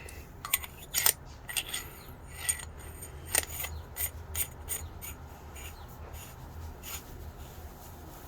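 Irregular light clicks and scrapes of a titanium screwdriver and its bits being handled, most of them in the first seven seconds.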